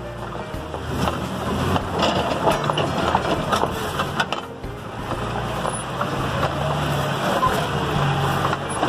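Jeep Wrangler engine running at low speed under load on a steep rocky climb, with tires crunching and clicking over loose rock and gravel.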